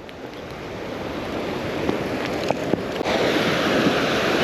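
Surf washing in, with wind buffeting the microphone, getting louder about three seconds in; a few light ticks near the middle.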